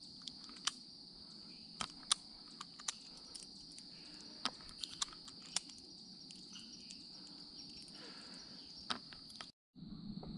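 Steady high-pitched chorus of insects trilling in the woods, with scattered sharp clicks over it. The sound drops out for a moment near the end.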